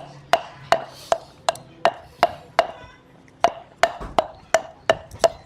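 Knife chopping on a cutting board in a steady rhythm, about three strokes a second, with a brief pause about three seconds in.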